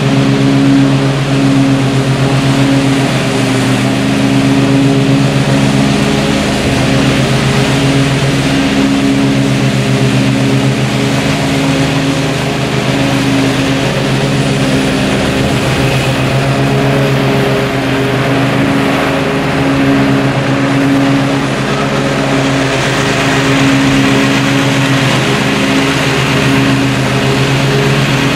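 Riding lawn mower's engine running steadily while cutting grass, an even drone with only slight rises and falls in level.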